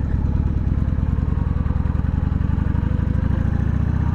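Harley-Davidson Sportster's air-cooled V-twin engine running at low revs, with a steady, even pulsing beat.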